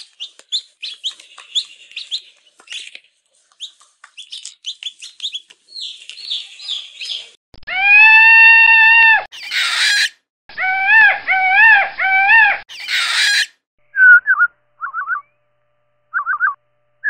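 A chick cheeping in rapid, high, short peeps. About halfway through, this gives way to a male Indian peafowl's long, loud calls, some held and some wavering, followed by a few shorter calls near the end.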